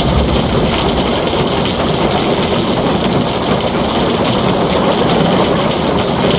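Heavy rain falling steadily on a tin roof, a dense even wash of noise with no pauses.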